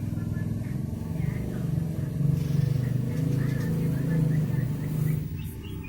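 A low droning hum, steady and slightly wavering, that swells for a few seconds and eases off near the end, with faint high chirps over it.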